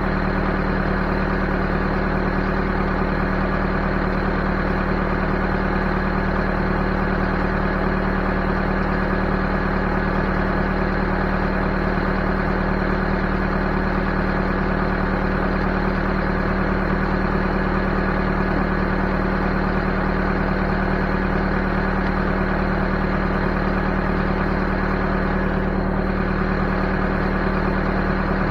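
Backhoe engine running steadily at a constant speed, an even hum with no change in pitch.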